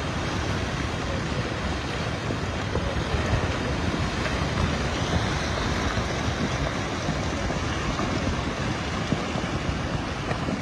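Steady rushing noise of wind buffeting the microphone, heaviest in the low end.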